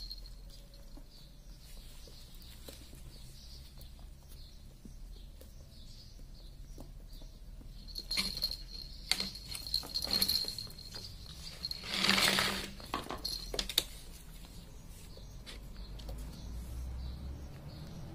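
A ferret scrabbling and playing among soft toys on a rubber floor mat: scattered rustles, light scrapes and pattering as it grabs and drags a plush toy, with one louder rustle lasting about a second about two-thirds of the way in.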